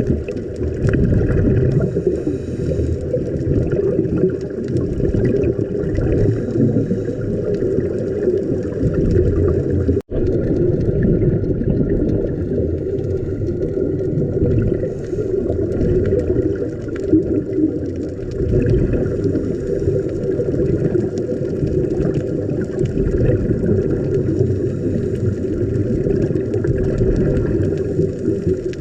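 Muffled underwater noise picked up through a camera's waterproof housing: a steady low rumble with bubbling. It cuts out for an instant about ten seconds in.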